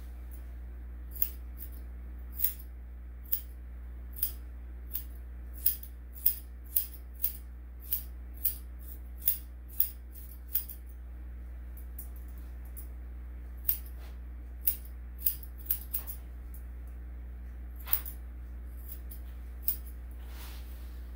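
Grooming scissors snipping a Bichon/Shih-Tzu's coat: about twenty sharp single snips, roughly one to two a second, with a couple of short pauses, over a steady low hum.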